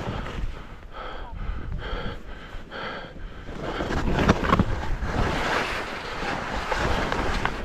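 A skier breathing hard, about two breaths a second, while skis slide and hiss through deep powder snow. A louder rush of snow and wind on the microphone comes in about halfway through.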